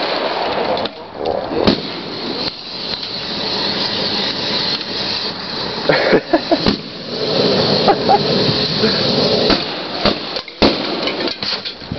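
Aerosol spray cans bursting one after another in a burning fire barrel: several sharp bangs over the steady hissing rush of the burning propellant.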